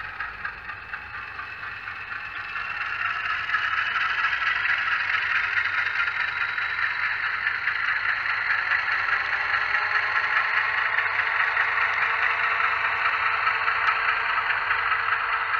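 Digital diesel sound from a LokSound Select decoder in an HO-scale GE U25B model, with the dynamic brake function on, played through the model's small speaker. It grows louder about two to three seconds in as the locomotive comes close, then holds steady.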